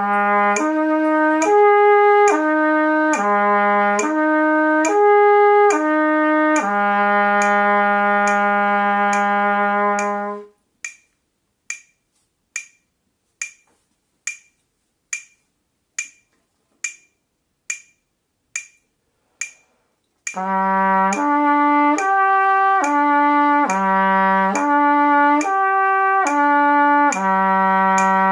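Trumpet playing a slow slurred lip-flexibility exercise across three harmonics: low, middle, top, middle, repeated, then a long held low note. After that a metronome clicks alone at 70 beats a minute for about ten seconds. About two-thirds of the way in, the trumpet starts a second exercise of the same shape on another fingering.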